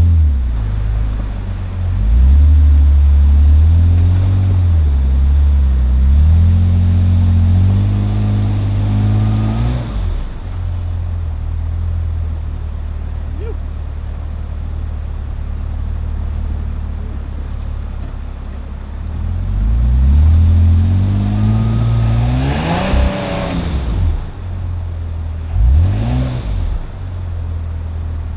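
Four-wheel-drive truck engine pulling on a rough dirt trail, revving up twice with a rising pitch and then dropping back, about seven seconds in and again around twenty seconds in, with a short blip of throttle near the end.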